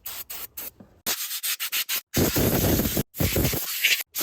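Electrical connectors on an engine wiring harness being cleaned by hand: a run of quick, short scratchy rubbing strokes, then several longer hissing passes with brief gaps between them.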